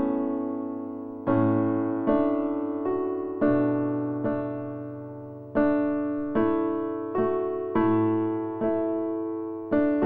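Background music: slow, gentle piano, with single notes and chords struck about once a second and left to fade.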